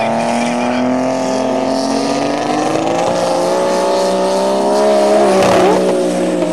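Drag-racing car engines held at high revs on the start line, the pitch creeping slowly upward. About five seconds in they grow louder and launch, the engine note bending as a car pulls away down the strip.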